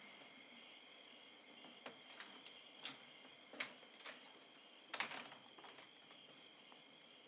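Quiet night ambience with a faint steady insect trill, crickets, broken by a few soft clicks and knocks from a screen door and footsteps on a wooden floor, the loudest knock about five seconds in.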